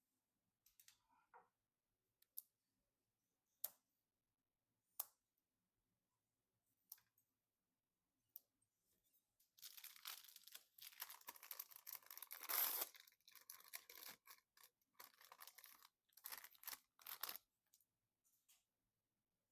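Hands at work on PC parts: a few sharp clicks, then several seconds of crackly rustling and tearing, as of packaging or film being handled.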